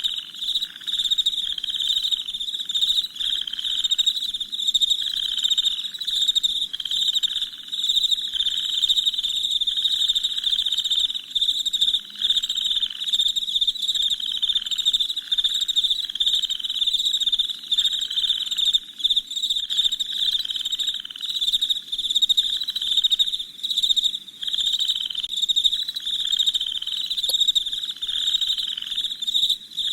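Crickets chirping in a dense, steady night chorus, with a lower call repeating about once a second underneath.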